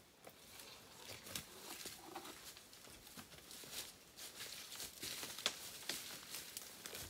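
Footsteps of two people crunching and rustling through dry fallen leaves on a forest floor, a rapid irregular crackle that grows louder as they come closer.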